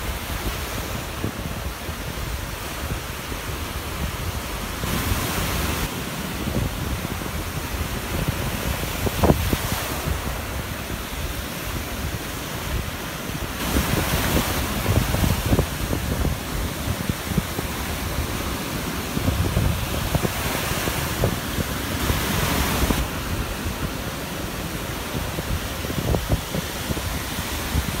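Rough sea surf breaking and washing up the beach, swelling into louder rushes every few seconds, with wind rumbling on the microphone.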